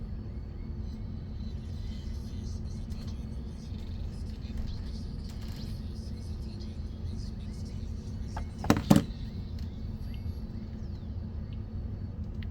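Faint hip hop music from wireless earbuds over a steady low rumble, with a short voice-like sound about nine seconds in.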